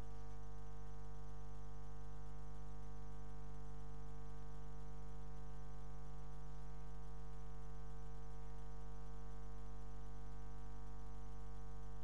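Steady electrical mains hum: one low tone with a stack of evenly spaced overtones and faint hiss above it, never changing.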